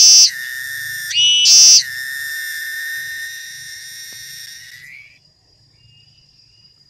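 Cicada singing at close range: short, harsh buzzing bursts about a second and a half apart, each followed by a steady whistling tone. After the second burst the tone is held, fades, rises briefly and stops about five seconds in.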